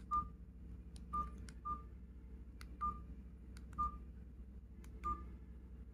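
KGTEL i9 feature phone keypad beeping as its buttons are pressed to move through the menus: six short beeps at one pitch, at uneven intervals, with faint clicks of the keys.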